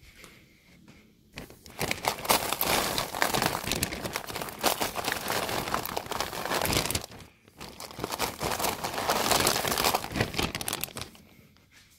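Dry, brittle dried red chili pods rustling and crackling as a hand rummages through a heap of them. There are two spells of a few seconds each, with a brief pause between.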